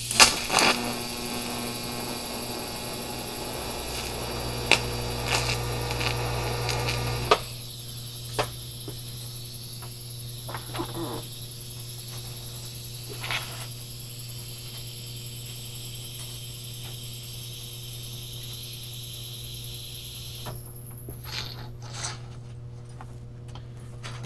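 TIG welding arc buzzing with a steady electrical hum and crackle as weld is built up on a broken, flush steel exhaust stud in an aluminum cylinder head; the arc cuts off about seven seconds in. After that only a faint hum and a few light clinks of rod and metal being handled.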